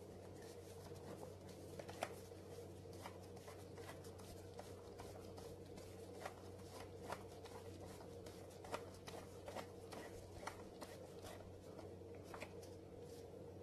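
A screwdriver turned by hand, driving a screw in until hand snug: faint, irregular small clicks and scrapes of metal tool on screw and plastic housing, over a low steady hum.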